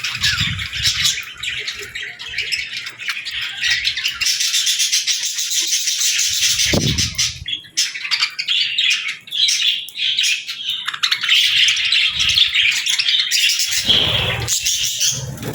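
Baby budgies and lovebirds chirping constantly in a dense chorus at feeding time, with a few dull low thumps.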